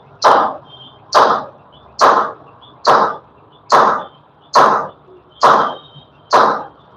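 Repeated hammer blows at a steady pace, about one strike a second, eight in all, each a sharp knock that fades quickly.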